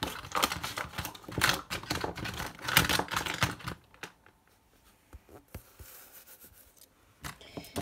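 Rapid, irregular clattering taps and scratches, dense for about the first three and a half seconds, then thinning to a few scattered clicks.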